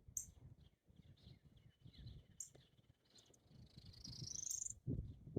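A hummingbird giving a few short, high chips and then a longer, rising high-pitched twitter lasting about a second, over a low rumble on the microphone.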